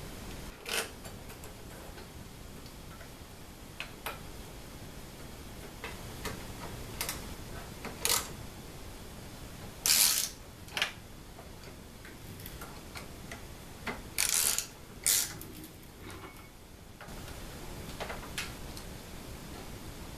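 Scattered metallic clicks and clinks of a hand tool, bolts and T-nuts as a linear rail's rod and aluminum mount are bolted together on aluminum extrusion, with a few louder clanks in the middle stretch.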